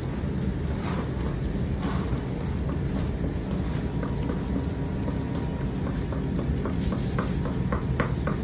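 Sugar syrup boiling in iron pans over a clay hearth under a steady low rumble. From about halfway through, sharp little pops and clicks from the bubbling syrup come a few times a second, more often near the end.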